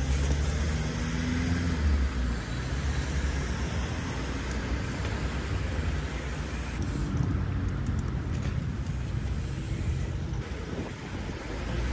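Road traffic at a city intersection: a steady low rumble of passing cars, with a heavier engine humming low in the first couple of seconds. A single sharp knock comes about a second in.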